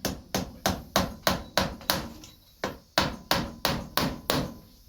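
Hammer tapping small nails into the rubber pieces of a boot: a quick, even run of about a dozen strikes, about three a second, with a short break around two seconds in.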